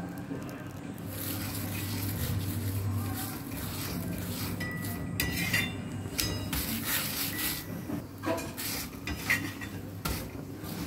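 Metal spatula scraping and clinking against an iron tawa as a paratha is turned and pressed flat, in irregular strokes that grow busier from about four seconds in, some with a short metallic ring.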